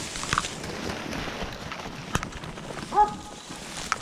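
Footsteps and brush rustling through dry leaves and pine straw, with a few sharp twig snaps. About three seconds in, one short bark from a hunting dog baying hogs.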